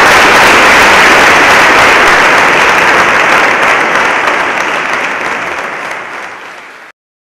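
Large audience applauding, a dense steady clapping that gradually fades and then cuts off abruptly about a second before the end.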